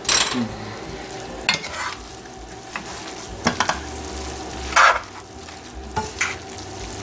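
Glass noodles and vegetables being tossed in a hot wok with a silicone spatula and wooden chopsticks, the food sizzling softly. Several short scrapes and taps of the utensils against the pan, the loudest about five seconds in.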